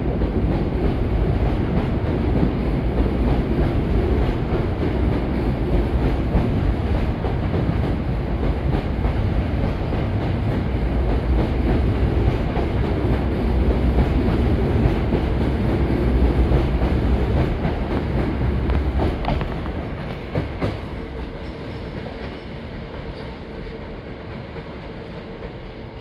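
Hankyu 1000 series electric train departing and running past, a loud steady rumble with wheels clacking over the rail joints. The rumble fades about three quarters of the way through as the train clears the platform, with a couple of sharp clicks, leaving a quieter hum with a faint steady tone.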